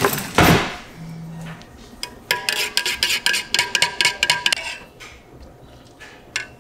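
Rapid clinking in a drinking glass as a drink is mixed: a quick run of light taps with a faint ringing tone, lasting about two seconds from about two seconds in. It is preceded by a brief whoosh.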